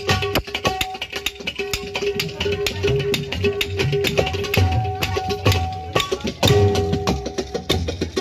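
Tabla played fast: a dense run of sharp strokes, the tuned right-hand drum ringing at one pitch again and again, with deep bass strokes from the left-hand drum.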